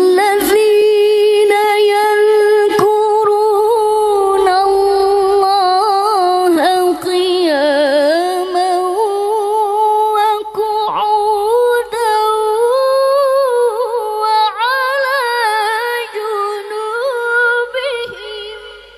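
A woman reciting the Quran in melodic tilawah style into a microphone, holding long ornamented notes with wavering trills. The pitch climbs higher in the second half, and the phrase fades out near the end.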